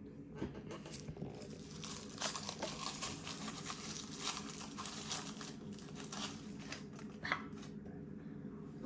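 Crinkly wrapping of an L.O.L. Surprise! blind packet being unwrapped by hand: a dense run of small crackles, thickest in the middle and thinning toward the end.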